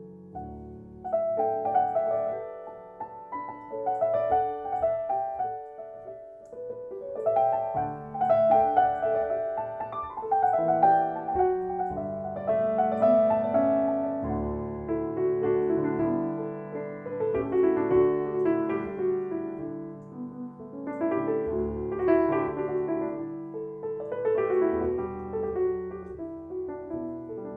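Solo piano playing a flowing instrumental piece, its phrases swelling and easing in loudness every few seconds.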